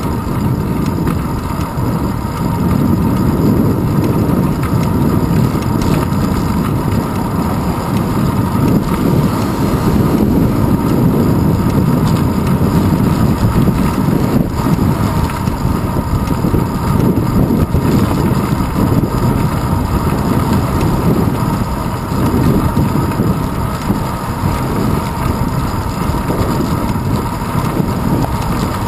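Wind rushing over a handlebar-mounted GoPro Hero 2 on a moving bicycle: a steady, loud low rumble.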